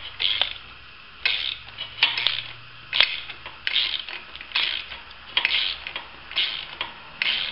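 Small ratchet wrench clicking in short strokes, a burst of clicks about once a second, as a bolt is run down into a sound threaded hole in an engine mount bracket.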